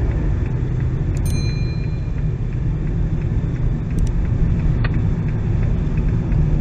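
Steady low rumble of a car's engine and tyres heard from inside the cabin, with a few brief clicks.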